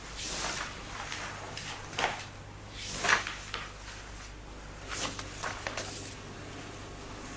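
Paper rustling as sheets are handled and pages turned, several short swishes, over a steady low hum.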